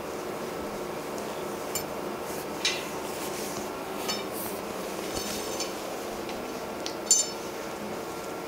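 A handful of light metallic clinks and jingles as brass fittings and a chain on a liquid-nitrogen dewar's top are handled, the loudest about seven seconds in. A steady machine hum runs underneath.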